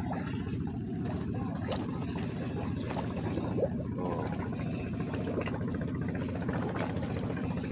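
A small engine running steadily, a low drone with a fast even pulse.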